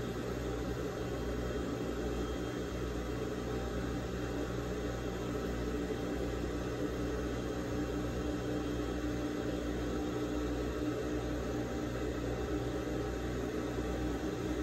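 Steady low electric-motor hum with a faint steady higher tone over it, unchanging throughout.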